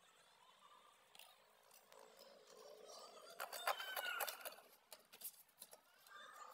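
Faint sounds of an outdoor football match on a hard court: distant shouts and sharp ball strikes. They grow louder for about a second near the middle.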